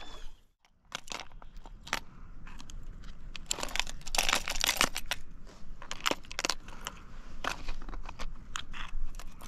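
Close rustling, crinkling and irregular clicking of handling noise. It starts after a brief gap about half a second in and is busiest in the middle.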